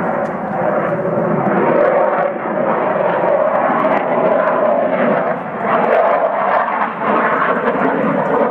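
F-16 fighter jet flying past overhead, its single jet engine giving a loud, steady roar that dips briefly a few times.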